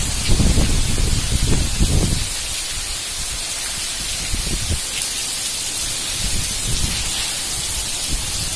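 Heavy monsoon rain pouring with a steady hiss, while storm wind gusts rumble on the microphone, strongest in the first two seconds and weaker later.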